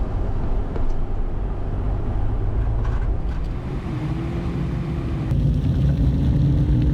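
A car driving, with a steady low engine and road rumble; the engine note comes up and rises slightly about halfway through.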